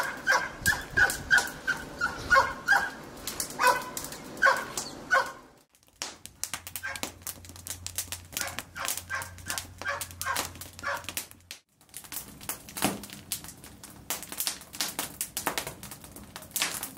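A dog whining and yipping in short, high calls, two or three a second. Later the calls are fainter and sharp crackles come through, typical of a wood fire burning.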